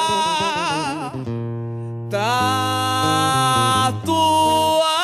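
Samba-enredo singing over plucked-string accompaniment. A voice holds a long note with wide vibrato and drops out about a second in, leaving only the strings and bass, then comes back on another held note.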